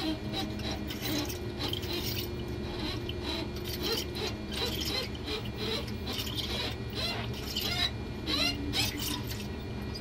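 25-pair telephone cable and its pull string rubbing and scraping as they are dragged by hand through a conduit, in irregular rasping strokes with a few faint squeaks. The pull is tight and needs force.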